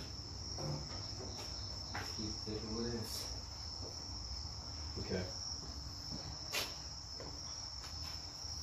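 A steady high-pitched trill like a cricket's, with a few faint clicks and knocks.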